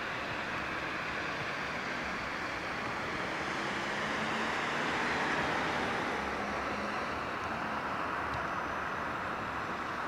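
Steady traffic noise that swells to a peak about halfway through and then eases off, as a vehicle passes by.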